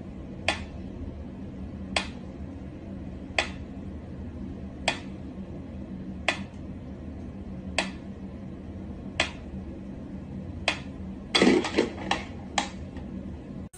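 Mechanical pyramid metronome ticking slowly and evenly, one sharp tick about every one and a half seconds. Near the end comes a quick flurry of knocks and clatter as a cat paws at it.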